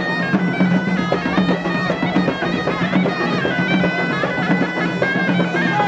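Snake charmer's long wooden pipe playing a melody that steps between high notes over a steady low drone.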